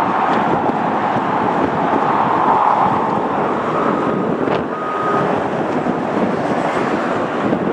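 Steady jet-engine rush from a taxiing Boeing 777F freighter's GE90 engines at low thrust, mixed with wind buffeting the microphone. A faint high whine comes in briefly around the middle.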